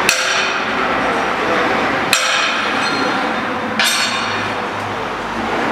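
Three sharp metal-on-metal clanks, each ringing briefly, as a steel cutting tool is knocked into a CNC wood lathe's tool holder during fitting.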